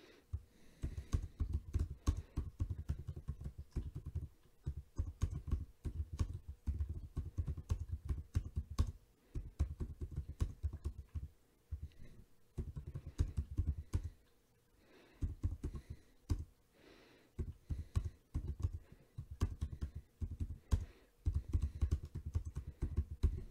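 Typing on a computer keyboard: runs of rapid keystrokes broken by short pauses.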